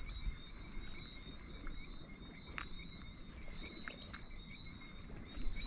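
Chorus of small frogs calling steadily, short chirping notes repeated over and over at two fixed pitches, with a few faint sharp clicks.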